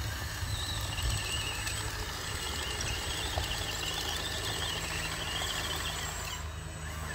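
Radio-controlled toy bulldozer running as it reverses on its tracks. A steady low hum sits under a wavering high whine that starts about a second in and fades near the end.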